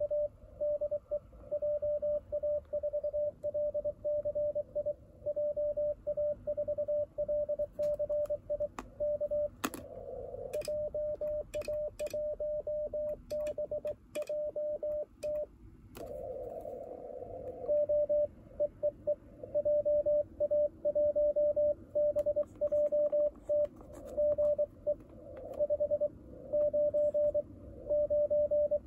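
Morse code (CW) from an Icom IC-705 transceiver on the 28 MHz band: a single steady mid-pitched tone keyed on and off in dots and dashes, carrying a CQ call, the operator's answer and the other station's 'GE 599 BK' reply. Sharp clicks and two short patches of hiss come in near the middle.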